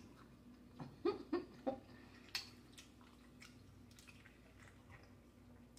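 Close-miked chewing and mouth smacking while eating: three short wet smacks in quick succession a little over a second in, a sharper click about a second later, then faint chewing clicks.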